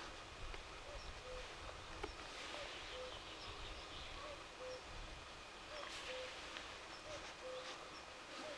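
Common cuckoo calling in the distance: its two-note 'cuc-koo', a higher note falling to a lower one, repeated about every second to second and a half. Faint high chirps of a small bird come over a steady outdoor hush.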